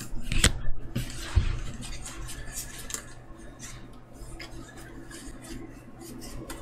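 Trading cards and pack wrappers being handled: scattered light clicks and rustling as Magic: The Gathering cards are flipped through, with a sharper click about half a second in.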